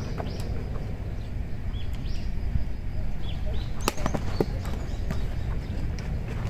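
Steady wind rumble on the microphone, with a sharp clack about four seconds in as the batter swings at a baseball pitch and the ball arrives at home plate, followed by a couple of smaller knocks. Faint short chirps sound now and then.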